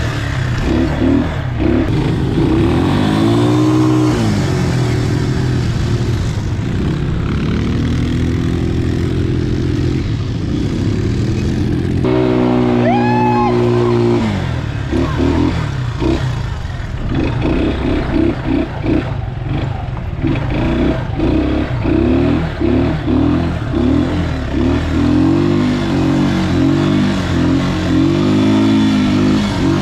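Quad bike (ATV) engines revving up and down while riding, the pitch rising and falling again and again. Just before the middle one engine revs up sharply to a high whine. After that the engine note breaks into quick pulses for several seconds.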